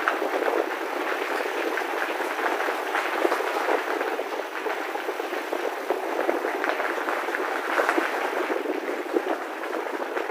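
Bicycle tyres rolling over a gravel track at speed: a steady rolling noise thick with small crackles and rattles.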